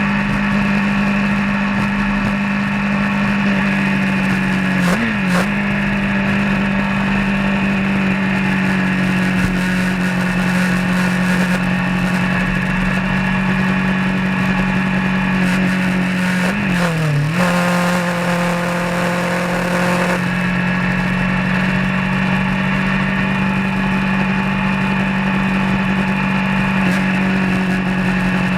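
Vehicle engine running steadily while driving on the road. Its pitch dips briefly and comes back twice, about five seconds in and again around seventeen seconds.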